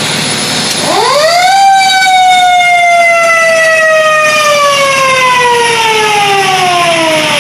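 Fire truck siren winding up: the pitch climbs steeply over about a second, then falls slowly and steadily as it winds down.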